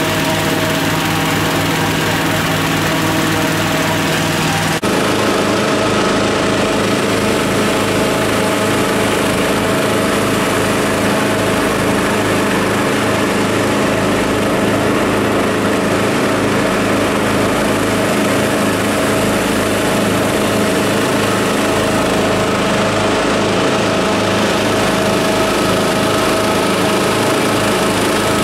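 Petrol-engine inflator fan running at a steady high drone, blowing cold air into a hot-air balloon envelope during cold inflation. The drone shifts abruptly in pitch about five seconds in.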